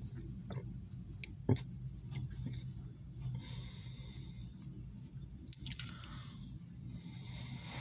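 A low steady hum heard inside a car, with a few sharp clicks, the loudest about one and a half seconds in and another about five and a half seconds in, and a brief hiss in the middle.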